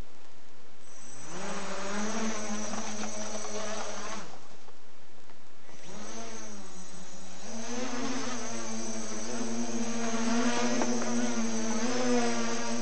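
Small electric tricopter's motors and propellers buzzing. They spin up with a rising pitch about a second in and cut out after about four seconds. Near six seconds they spin up again and hold a steady hover, the pitch wavering slightly.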